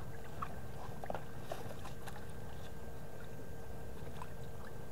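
Faint scattered splashes and clicks in shallow pond water over a steady low rumble and a thin, steady hum.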